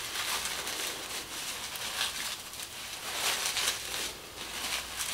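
Clear plastic bag crinkling and rustling as it is handled and opened by hand, in several uneven bursts.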